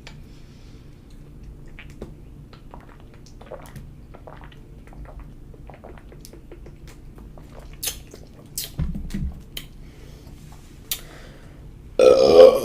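A person's quiet mouth noises and small clicks after drinking soda, a low short burp about nine seconds in, then a loud burp near the end.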